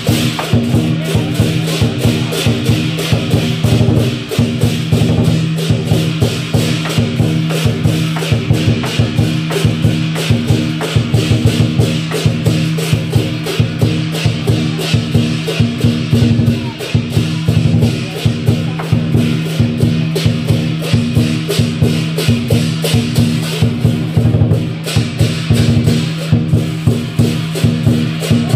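Chinese lion dance percussion: a large lion drum beaten in a fast, continuous rhythm with clashing cymbals ringing over it.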